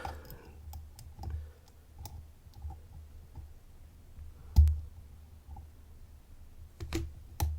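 Small clicks and taps of a lock pick and tension tool working the pins of a 10-pin Domus dimple Euro cylinder, scattered and faint, with one sharp louder click about four and a half seconds in and two more near the end.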